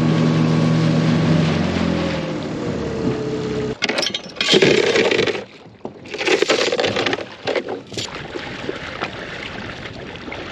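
A small boat's outboard motor running, then throttling down with falling pitch and cutting out about four seconds in. Several loud crunching, scraping noises follow.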